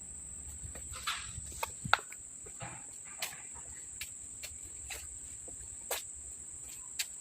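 Scattered light knocks and clicks, about one every half second to a second, the sharpest about two seconds in, over a steady high-pitched insect trill.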